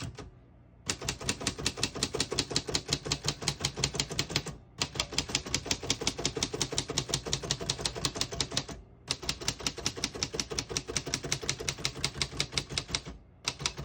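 1947 Royal Model U portable typewriter being typed on: quick, even keystrokes with the typebars clacking against the platen, in four long runs broken by brief pauses.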